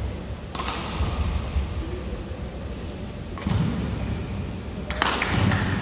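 Badminton rackets striking the shuttlecock during a rally: sharp echoing hits about half a second in, a little past the middle, and a loudest one near the end, over the low rumble of the sports hall.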